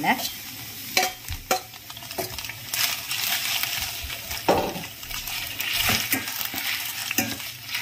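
Udon noodles and vegetables sizzling as they are stir-fried in a stainless-steel pan. A metal spatula clicks and scrapes against the pan several times as the noodles are tossed.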